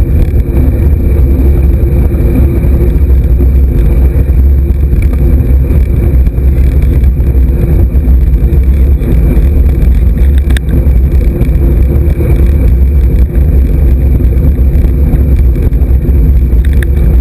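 Steady, loud wind rumble buffeting the microphone of a camera riding along on a moving road bike, mixed with road and tyre noise.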